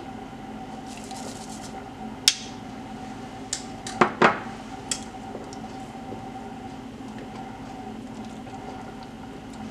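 A few sharp clinks of kitchen utensils against a stainless steel stockpot and glass, the loudest a ringing pair about four seconds in, over a steady low hum; then a metal ladle stirring the pot of pozole.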